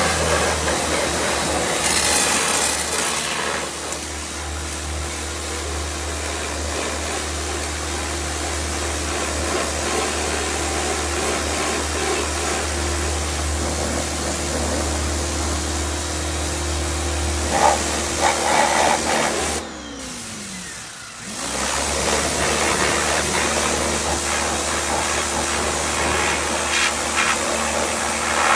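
Pressure washer running, its motor humming steadily under the hiss of the water jet spraying a motorcycle. About 20 seconds in, the motor winds down and stops for a moment, then starts again.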